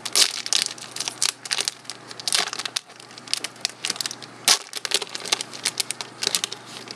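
Yu-Gi-Oh booster pack wrapper crinkling and tearing as it is opened by hand: a rapid, irregular run of sharp crackles.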